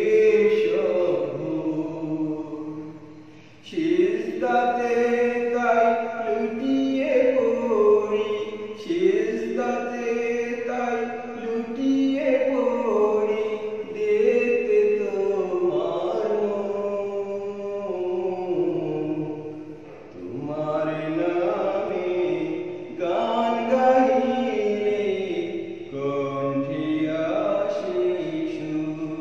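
A solo voice singing a Bengali Islamic devotional song in long, drawn-out melodic phrases, with short breaks between them.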